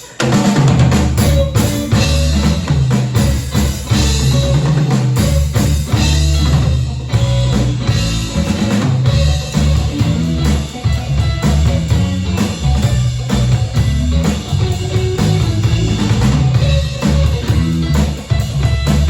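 A rock band playing an instrumental passage without vocals: drum kit with bass drum and rimshots, bass guitar and electric guitar.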